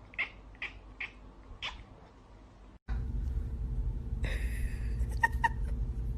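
A domestic cat giving four short meows about half a second apart. Then an abrupt cut to a louder steady low rumble with a few brief sounds over it.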